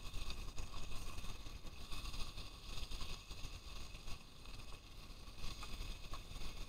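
Steady frying sizzle of fish fillets in a hot pan, with wind rumbling on the microphone.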